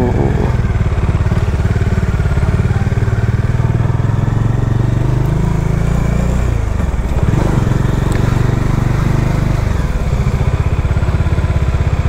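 Bajaj Dominar 400's single-cylinder engine running under way, heard from the rider's position. The engine note eases off briefly about seven seconds in and again near ten seconds, then picks back up.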